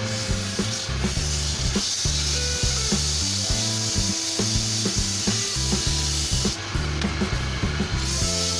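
Background music with a stepping bass line, over a steady scraping of a hand tool on wood.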